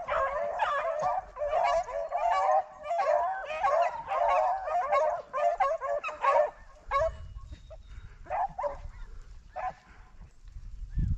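A pack of rabbit-hunting hounds baying on a running rabbit's trail, many voices overlapping at once. After about six seconds the chorus thins to a few scattered yelps.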